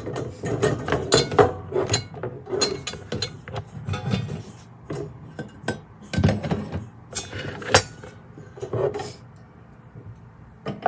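Metal parts of a SUFAUY three-tier can rack clinking and knocking together as the rack is assembled: a run of irregular clanks and taps that thins out near the end.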